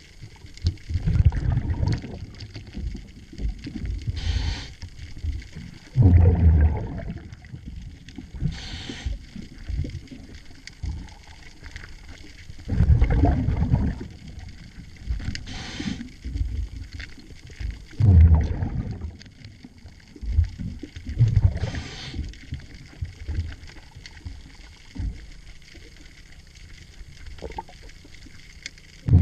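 Scuba regulator breathing underwater: a short hiss on each inhale and a low bubbling rumble of exhaust bubbles on each exhale, about four breaths.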